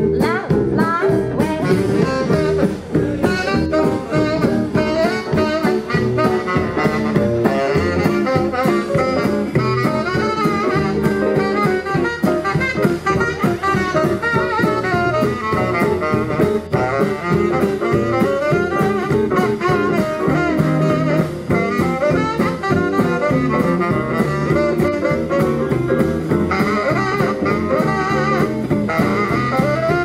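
Live jazz band playing an instrumental passage: saxophone and other horns over a steady drum beat.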